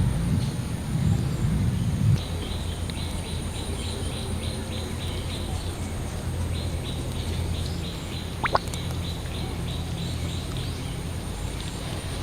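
Outdoor ambience: a bird calling in runs of short high chirps, about three or four a second, over a steady faint high-pitched drone and a low rumble.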